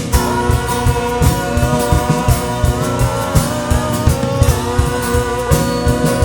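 Live worship band playing: a melody glides over sustained chords, with guitar and a drum kit keeping a steady beat.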